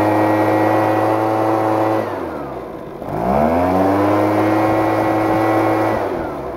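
Husqvarna 130BT backpack leaf blower's two-stroke engine revved to full throttle and held. It drops back toward idle about two seconds in, revs up again just after three seconds, holds, and falls off near the end. Its single carburetor mixture screw is set as a compromise between idle and full throttle, and the owner suspects it is still running lean.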